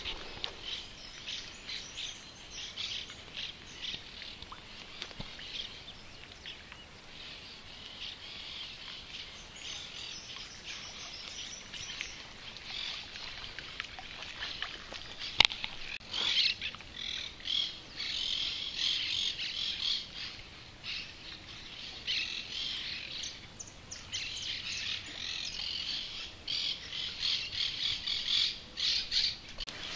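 Birds chirping and calling in a busy, overlapping chorus, thickest in the second half. A single sharp click sounds about halfway through.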